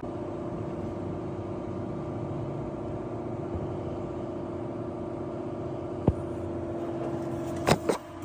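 Hyundai Elantra running steadily with a constant whining hum over the engine. There is a sharp click about six seconds in and two more near the end.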